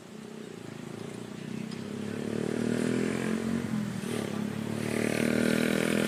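A small engine running and growing steadily louder, its pitch rising slightly.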